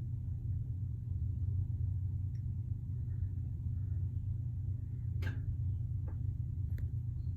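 A steady low hum, with three light clicks a little past halfway.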